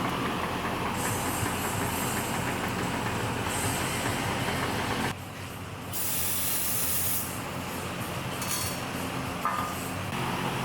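Pneumatic shop tool running, with a steady machine hum and hissing air that swells in three stretches and dips briefly about halfway through.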